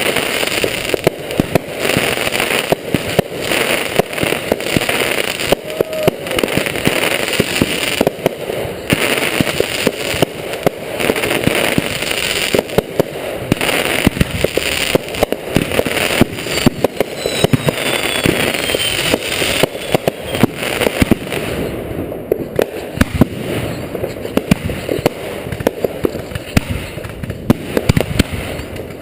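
Consumer fireworks display in full barrage: a dense, continuous run of shells bursting with sharp reports and crackling.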